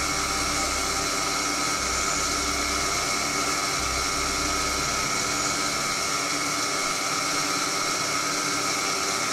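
Proxxon PD 250/e mini lathe running steadily while a boring bar cuts a bearing seat in silver steel bar: an even motor whine with the hiss of the cut.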